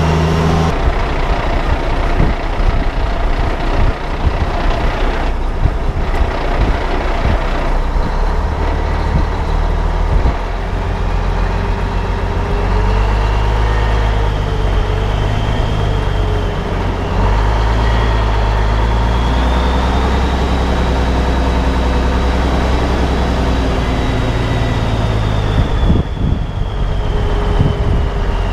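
Heavy truck's diesel engine running as the truck moves slowly, its engine note stepping up and down several times, with a faint high whine that slowly rises and falls.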